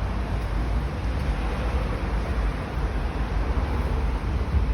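Steady low rumble and hiss of outdoor noise, heaviest in the bass, with no distinct events.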